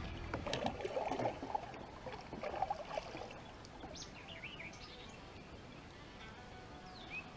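Water splashing with small knocks against a kayak for the first few seconds, then a small bird chirping in short, quick rising and falling notes.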